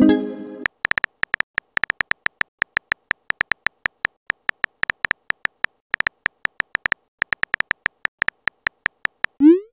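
Simulated phone-keyboard key clicks from a texting-story app: a fast, uneven run of short tonal ticks as a message is typed letter by letter. A pitched message chime dies away at the very start, and a short rising whoosh near the end marks the message being sent.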